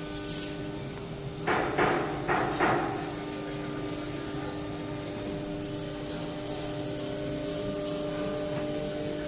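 A CNC wood router's axis drive motors whining in steady tones as the gantry is jogged along by the handwheel, with a few short clattering knocks about one and a half to three seconds in.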